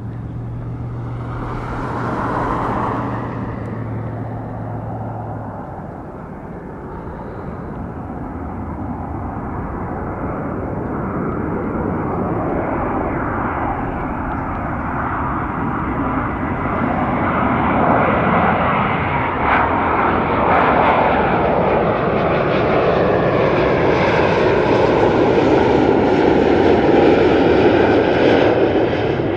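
Two Rolls-Royce Trent 800 turbofan engines of a Boeing 777-200ER on final approach with gear down, a steady jet roar growing louder as the airliner comes closer and goes by, loudest near the end, with a whine that shifts in pitch.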